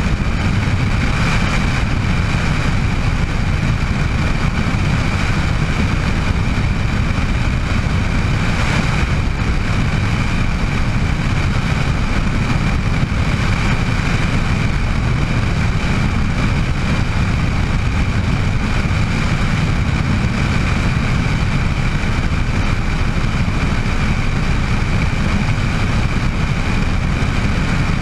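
Bell 206 JetRanger helicopter running steadily: a low rotor and engine drone with a steady high turbine whine above it.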